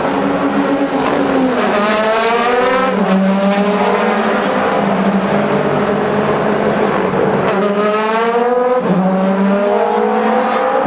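DTM touring cars' V8 racing engines accelerating out of a slow corner. Twice an engine rises steeply in pitch, then drops suddenly at a gear change, over the steady drone of other cars on track.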